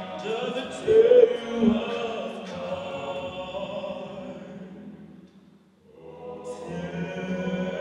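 Men's a cappella group singing: a solo voice over the group's held chords. The chords fade away to a brief pause a little past the middle, then the group comes back in on a new sustained chord.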